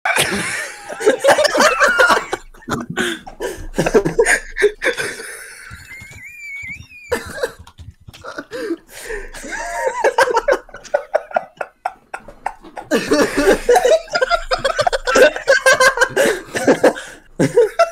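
People laughing hard over a Discord voice call, in fits with short breaks, including a high wavering squeal about six seconds in.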